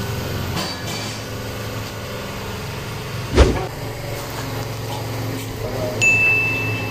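Steady machinery hum, with one sharp, loud knock about three and a half seconds in and a steady high-pitched beep starting near the end.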